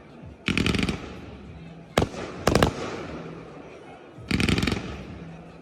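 Aerial fireworks bursting at a display: a quick volley of sharp bangs about half a second in, two single bangs around two seconds in, and another rapid volley after four seconds, each followed by a rumbling echo.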